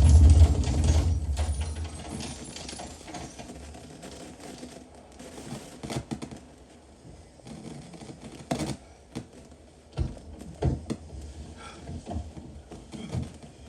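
Film gunfight sound effects: a very loud burst of gunfire ends in the first half second and dies away over about two seconds. Scattered sharp clicks and knocks follow at irregular intervals.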